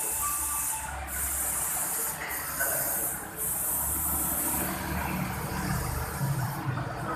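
A child snoring: repeated noisy, hissy breaths over a low rumble.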